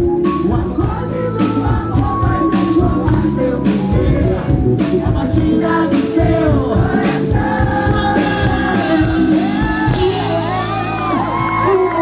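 Live band music with a male lead singer amplified through the stage PA. Steady drum beats stop a little past halfway, leaving held, wavering sung notes, with shouts and whoops from the crowd near the end.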